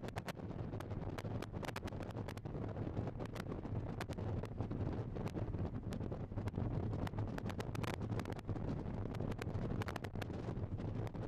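Jet engines of a twin-engine widebody airliner climbing out after takeoff, heard as a steady low rumble. Heavy wind buffets the microphone, with frequent short sharp pops throughout.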